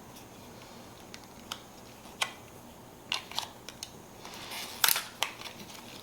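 Sharp clicks and clinks of a small bolt, bracket and Allen wrench being handled while a backrest mount is unbolted, scattered irregularly with the loudest about two seconds in and near the end.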